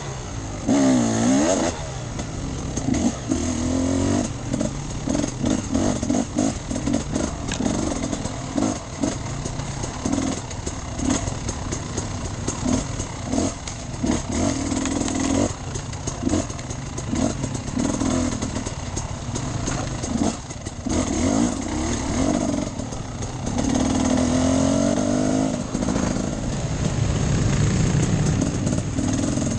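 Enduro motorcycle engine being ridden off-road, revving up and down in short throttle bursts every second or two, with longer rising pulls about a second in and near the end.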